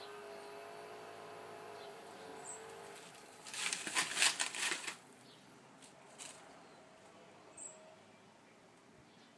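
Rustling and crackling of dry leaves and garden plants for about a second and a half midway through, over a faint steady engine hum that fades after it. A couple of light clicks follow.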